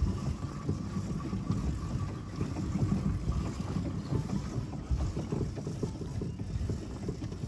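Wind buffeting the microphone out on a small boat on the water: a low, uneven, gusting rumble.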